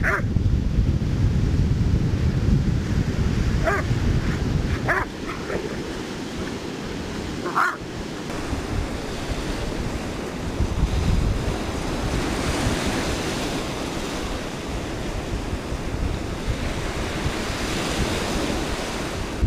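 Surf breaking on a sandy shore, with wind buffeting the microphone, heaviest in the first five seconds. A dog gives a few short yips, about four, five and seven and a half seconds in.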